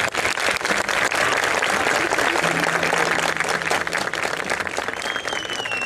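Audience applauding, with a long high whistle near the end.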